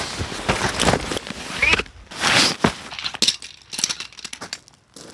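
Footsteps crunching on gravel and the rustle of a nylon tent bag being handled, with a loud swishing rustle a little past the middle, then a run of light clicks and taps that thins out near the end.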